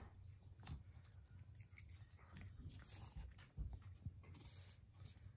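Faint sounds of a shih tzu chewing a soft piece of sausage, with a few light clicks scattered through.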